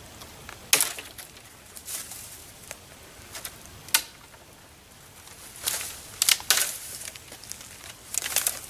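Dry dead branches and twigs snapping and crackling as they are pulled and broken off by hand: irregular sharp cracks, single ones in the first half and a quick cluster of snaps past the middle and again near the end.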